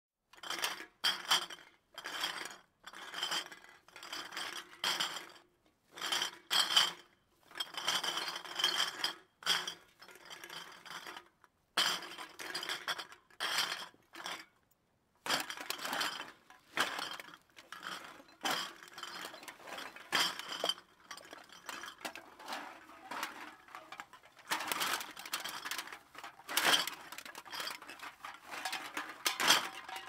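Empty glass bottles clinking and rattling against one another, heard at a distance, in irregular clusters of clinks with short pauses between them.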